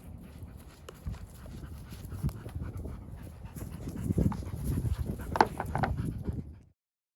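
Wind buffeting the microphone in uneven gusts, a low rumble that grows louder in the second half and then cuts off abruptly near the end.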